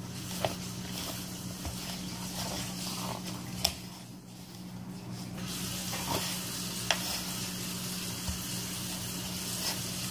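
Hands kneading soft, wet yeast dough in a plastic bowl: sticky squishing and scraping, with a few short sharp clicks. A steady low hum runs underneath.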